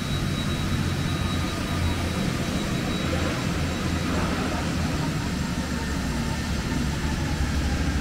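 Steady low drone and hum of cable extrusion line machinery running in a factory hall, with a faint high whine in the first half.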